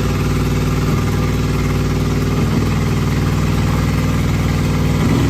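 Swapped-in 5.3-litre LS V8 engine idling steadily.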